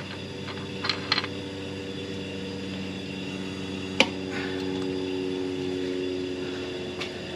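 Compressed air from a leak-down tester hissing steadily into a Honda H22's number one cylinder, over a steady low hum, with a sharp click about four seconds in. The air is leaking past the intake valves.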